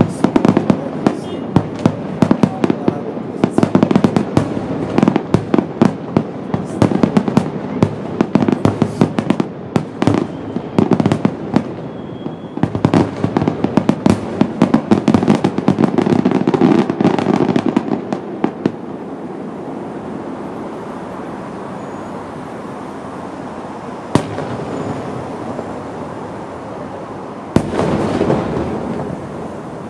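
Aerial fireworks display: a dense barrage of shells bursting with rapid bangs and crackle, which thins out about two-thirds of the way through to a rolling rumble, with one lone bang and then another burst near the end.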